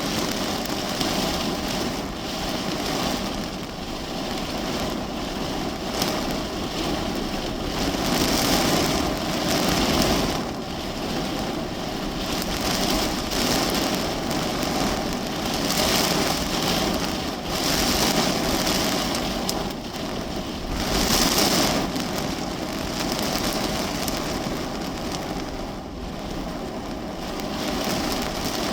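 Heavy storm rain falling on a car's roof and windshield, heard from inside the cabin, a dense steady patter that swells and eases every few seconds.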